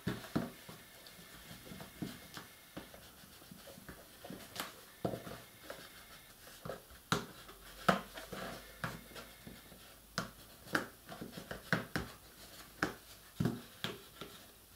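Burnishing tool rubbing and pressing along the edges and corners of a chipboard box: an irregular string of short scraping strokes and light taps as the joined corners and strips are burnished down.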